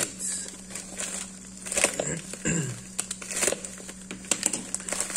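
Plastic mailer bag crinkling in irregular bursts as it is handled and pulled open by hand.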